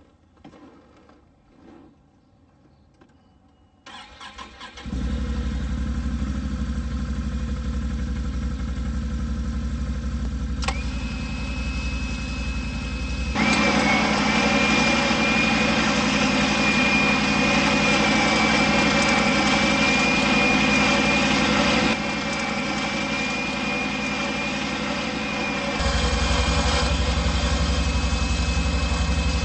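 Can-Am Outlander 570 ATV engine started about four seconds in and then running steadily. About eleven seconds in a click brings in a steady high electric-motor whine from the winch, which grows louder from about thirteen seconds as it spools in cable.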